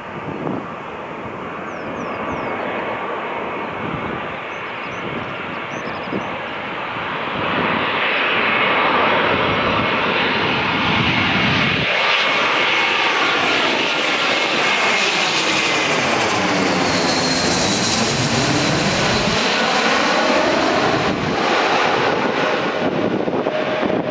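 Airbus A321-200 jet airliner on final approach with gear down, passing low overhead: steady jet engine noise that builds over the first several seconds and stays loud, with a faint whine falling slightly in pitch and a sweeping, phasing sound as it goes over.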